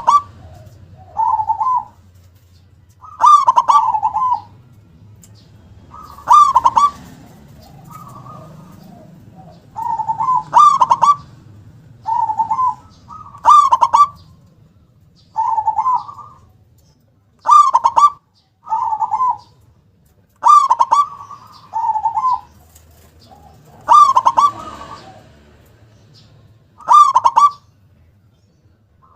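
Zebra dove (perkutut) cooing: short, loud phrases repeated every two seconds or so.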